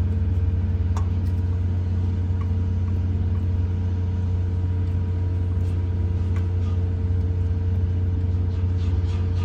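Steady low mechanical drone of machinery running nearby, unchanging throughout, with a couple of faint light clicks.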